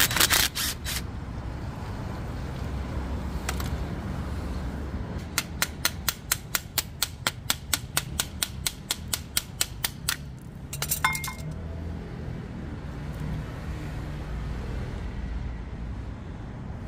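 Sharp clicks from hand work on a small-engine carburetor. There are a few loose clicks at first, then about a third of the way in an even run of clicks comes at about four a second for some five seconds, and a short clatter follows. A low steady hum runs underneath.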